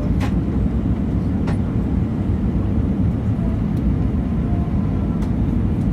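Steady low rumble of an Airbus A320 in flight, heard from inside the passenger cabin, with a few faint clicks.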